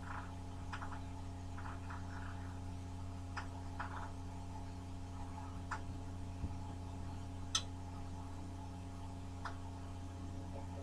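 A steady low electrical-sounding hum, with scattered faint clicks and taps and one sharper click about seven and a half seconds in.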